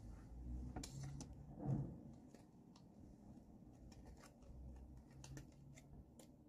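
Faint handling sounds as hands work on the hair and hairpins: scattered small clicks and light rustling, with a soft thump a little under two seconds in.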